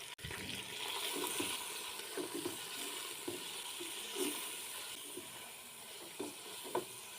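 Boneless chicken pieces sizzling in hot cooking oil with onion, garlic and ginger: a steady frying hiss, strongest in the first couple of seconds, with scattered soft knocks from stirring in the pan.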